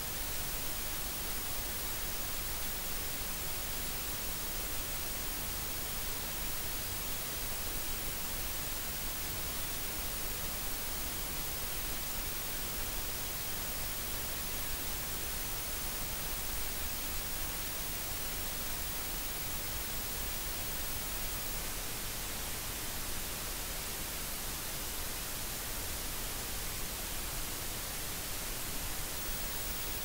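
Steady white noise: an even, unchanging hiss, strongest in the highs.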